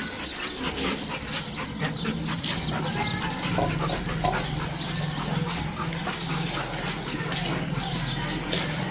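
Dogs moving about in a kennel: rapid, irregular clicking and scuffling over a steady low hum.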